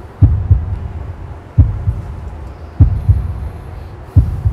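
Slow heartbeat sound effect: four low lub-dub double thumps, a strong beat followed by a softer one, repeating about every 1.3 seconds.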